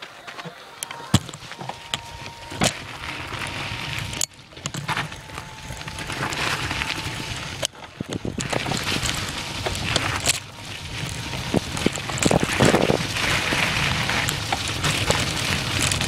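Mountain bike riding over a rough trail: a steady rush of tyre and wind noise on the microphone, broken by frequent sharp clunks and rattles as the bike hits bumps, getting louder as it goes. The sound drops out briefly twice, near 4 and 8 seconds in.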